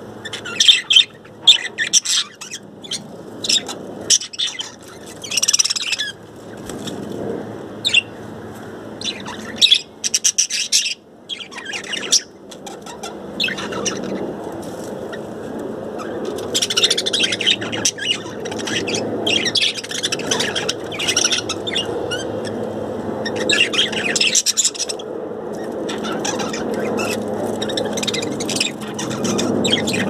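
A flock of budgerigars chattering in an aviary: quick, busy runs of high chirps and warbles come in repeated spells with short gaps. A steady low background noise grows louder through the second half.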